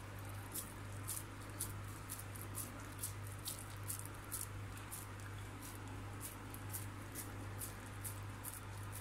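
Wet, squishy patting and squeezing of minced-meat kebab mixture by bare hands as it is pressed onto a skewer, with irregular soft clicks several times a second. A steady low hum runs underneath.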